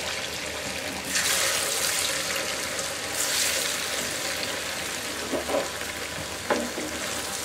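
Hot oil sizzling and bubbling as slices of rice-flour dough (moshlai pitha) deep-fry in a pan. The sizzle swells about a second in and again around three seconds in, as more slices go into the oil.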